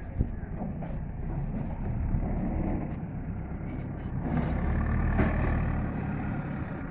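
Diesel engines of a truck and a backhoe loader running, louder for a couple of seconds in the second half, with a sharp knock just after the start.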